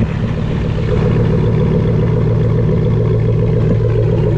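Chevrolet Silverado's 5.3 V8 idling steadily through a freshly installed true dual exhaust with an X-pipe, just after its first start-up. Loud, with an even low drone and no revving.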